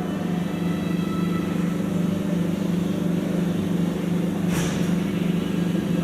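Train locomotive engine running at a steady idle, a constant low hum, with a brief hiss about four and a half seconds in.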